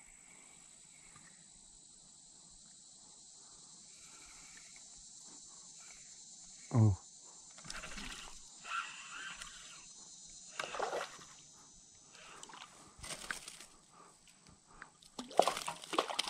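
A hooked bass thrashing and splashing at the surface near the end, over a steady faint high hiss. About seven seconds in there is one brief loud sound that drops sharply in pitch.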